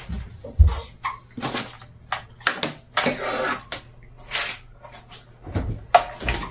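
Kitchen handling noises: scattered knocks, clicks and short rustles as a plastic flour jar is set aside and an electric hand mixer is picked up, with a dull thump about half a second in. The mixer is not yet running.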